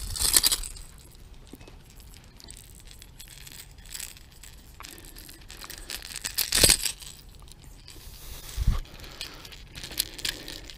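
A hooked pickerel splashing at the water's edge as it is landed, then flapping while it is held, with the light clinking and rattling of the topwater popper's metal treble hooks. The splash comes right at the start, the loudest flap a little past the middle.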